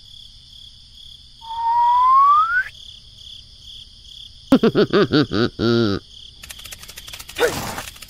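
Cricket chirping as a steady, pulsing high trill. About a second and a half in, a rising whistle sounds, and about four and a half seconds in comes a quick run of squeaky, up-and-down cartoon voice sounds.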